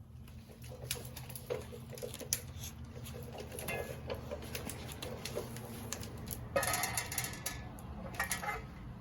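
Light metal clicks, taps and scraping as a steering knuckle is handled and worked onto a wheel hub assembly, with a louder rubbing scrape about six and a half seconds in, over a low steady hum.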